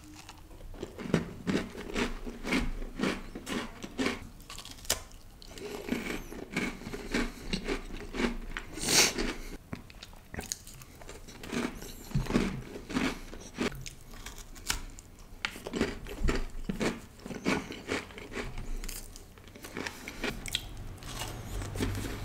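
Close-up crunching and chewing of a chocolate chip cookie: repeated bites and chews, with the loudest crunch about nine seconds in.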